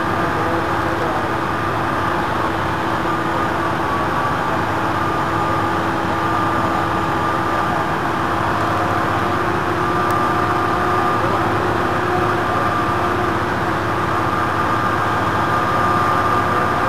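Drilling rig's engine and hydraulic machinery running steadily, a constant heavy mechanical noise with a held whine over it, as the pipehandler arm moves drill pipe.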